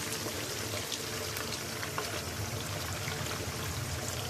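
Chicken pieces frying in hot oil in a wok, sizzling steadily with scattered small crackles as plain yogurt is poured over them.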